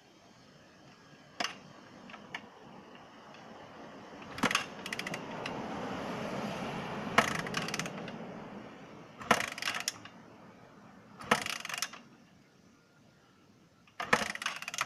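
Motorcycle kick-starter worked about five times with the ignition off and the choke on, the engine turning over without firing: mechanical clanks and ratcheting at each kick. This primes the cold engine with a rich mixture to avoid hard starting. A rushing noise swells up and dies away in the middle.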